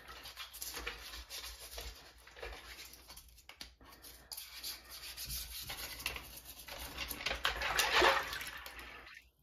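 A toothbrush scrubbing a plastic keyboard trim piece under water, bristles rubbing in uneven strokes, with water sloshing. The loudest sloshing comes near the end.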